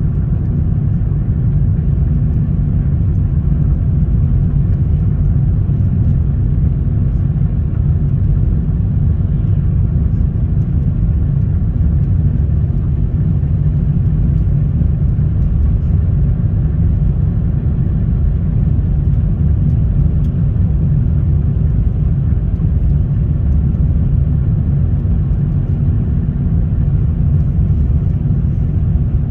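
Car travelling, heard from inside the cabin: a steady low rumble of road and engine noise.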